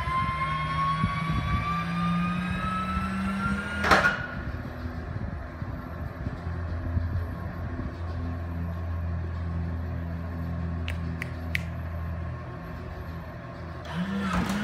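Cessna 421A landing gear being cycled on jacks: a motor whine rising in pitch ends in a loud clunk about four seconds in, followed by a lower steady hum. Three light clicks come near eleven seconds, and another clunk near the end is followed by a new hum rising in pitch.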